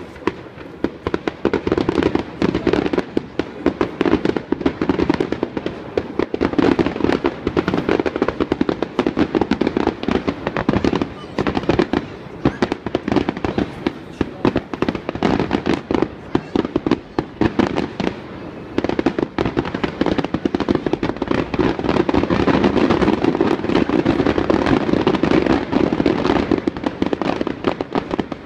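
Fireworks display going off in a rapid, continuous barrage of bangs and crackles, with short lulls about a third and two-thirds of the way through.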